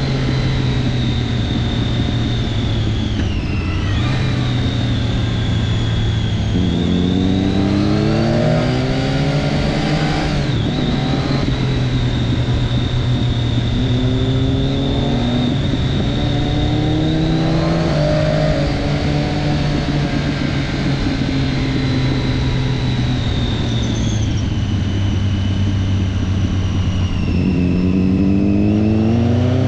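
Triumph Daytona 675 three-cylinder sport-bike engine running hard. Its pitch climbs in three long rises and drops back between them as it accelerates and shifts.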